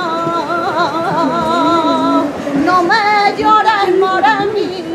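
A woman singing a saeta, unaccompanied flamenco devotional song: one long melismatic line with wavering, trilled ornaments and vibrato.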